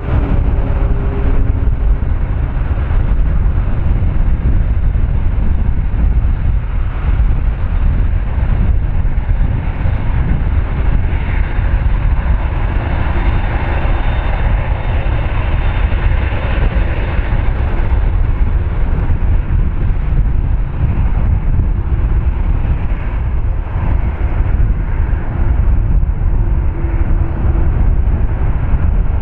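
Jet engines of a Boeing 747-8, GEnx turbofans, running: a steady loud rumble with a rushing hiss on top that swells for several seconds around the middle and then eases.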